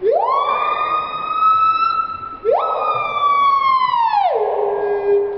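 A siren-like wail: a pitched tone sweeps sharply up, holds and sags slowly, sweeps up again a little over two seconds in, then drops to a held low note near the end.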